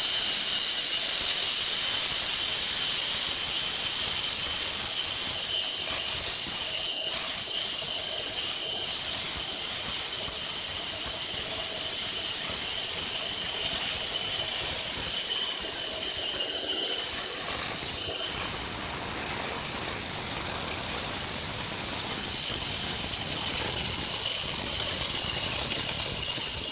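Concrete cutting machine's blade cutting into concrete: a loud, steady, high-pitched screeching whine, dipping briefly about seven and again about seventeen seconds in.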